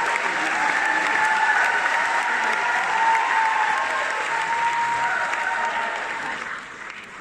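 Large audience applauding, the clapping fading away near the end.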